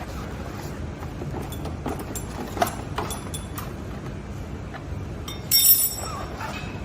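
Metal tools and parts clinking and tapping during repair work on an electric scooter: scattered light taps, a sharper knock a little before halfway, and a louder half-second metallic clatter with a ringing note about five and a half seconds in, over steady background noise.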